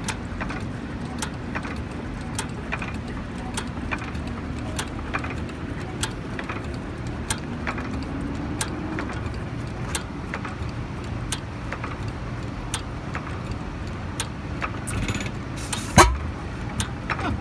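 Old hit-and-miss stationary engine coasting on its flywheels between firings, a steady low rumble with regular sharp clicks about once or twice a second. One loud bang near the end stands out above everything else.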